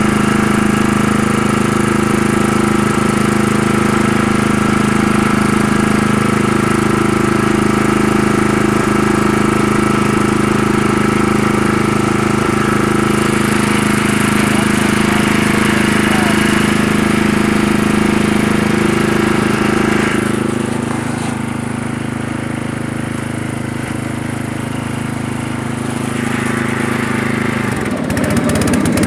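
Murray riding lawn tractor's engine and mower running steadily while bagging leaves. About two-thirds through the sound turns quieter and duller, and near the end the engine note shifts.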